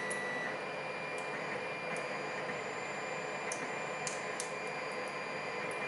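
Scattered faint metallic clicks and ticks of small tools working a lock cylinder, irregular and a second or so apart, over a steady background hiss.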